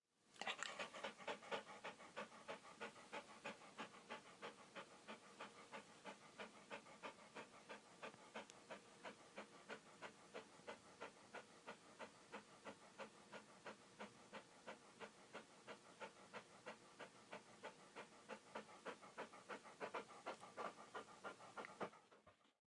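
Dog panting rapidly and evenly, about four breaths a second, fading in at the start and fading out near the end.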